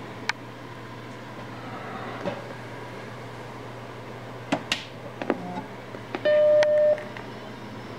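Macintosh SE powering on: a few clicks, then its startup beep, one steady pitched tone lasting under a second about six seconds in, over a steady low hum.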